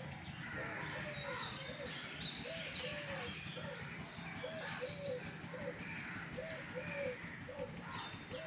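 A dove cooing over and over in short phrases of two or three notes, with smaller birds chirping in the background.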